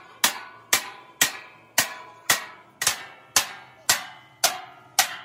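Metal being struck with a hammer in steady blows, about two a second, each strike ringing briefly before the next.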